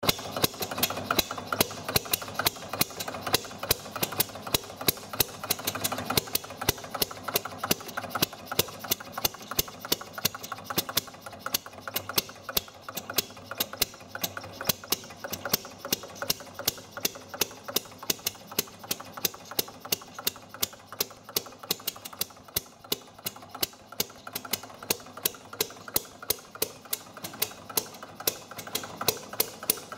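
Small homemade compressionless two-stroke combustion engine running, with a sharp, regular click or pop at each firing, about three to four a second, steady throughout.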